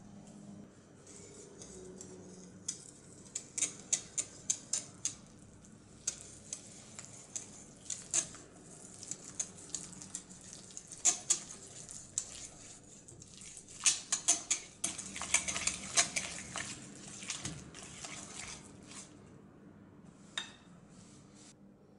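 Kitchen utensils clinking and scraping against dishes while batter is mixed: irregular sharp clicks over a soft hiss, busiest past the middle and dying away near the end.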